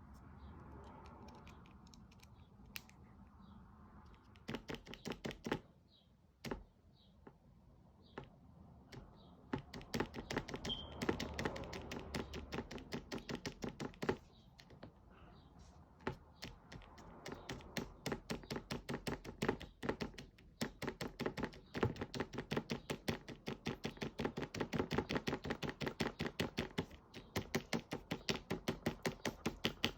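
Rapid clicking, in short runs at first and then almost unbroken from about halfway through, at roughly five clicks a second.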